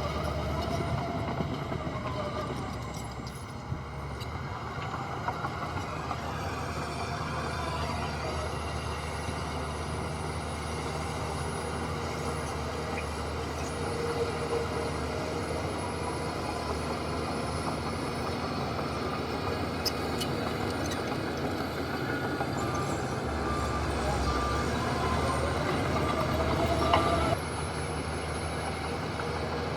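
Heavy diesel earthmoving machinery running steadily. Near the end its pitch rises for a few seconds and then cuts off suddenly, with a run of short evenly spaced beeps over it.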